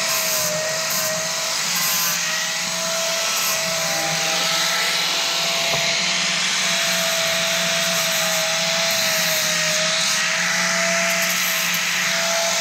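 Angle grinder running steadily with a constant whine, its disc grinding on steel.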